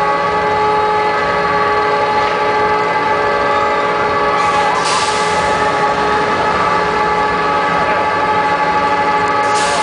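Roller coaster chain lift running as a train is hauled up the lift hill: a steady mechanical whine made of several held tones, with two short hissy bursts, one about five seconds in and one near the end.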